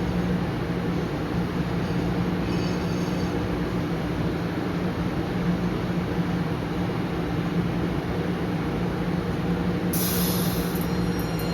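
MBTA Blue Line subway train running at the platform with a steady electrical hum. A faint high wheel squeal comes about two and a half seconds in, and a sudden short hiss of air comes near the end.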